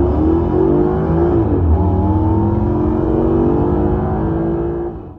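Maserati GranTurismo V8 engine running, its note rising slowly with a brief dip about a second and a half in, then cutting off abruptly at the end.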